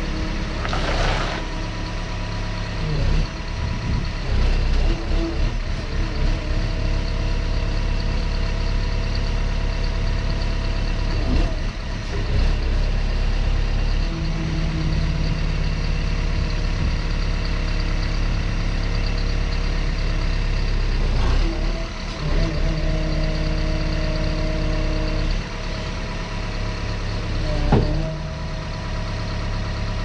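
Diesel engine of a 2017 Gehl V400 skid steer running as the machine manoeuvres and raises its lift arms, its note changing several times as the load changes. A single short knock near the end.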